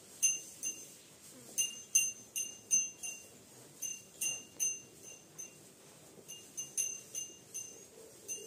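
Small metal cattle bell ringing in short clear strikes, about two or three a second at uneven spacing, with a short lull midway, as the feeding cattle move their heads.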